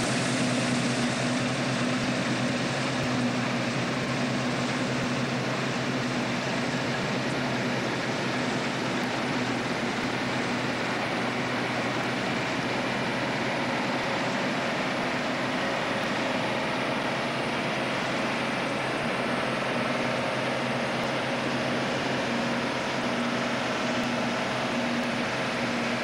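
Deutz-Fahr M35.70 combine harvester running steadily while it cuts standing grain: a constant engine and threshing-machinery din with a steady low hum.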